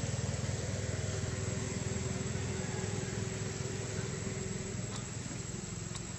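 A motor engine running steadily, a low hum that eases off a little after about five seconds.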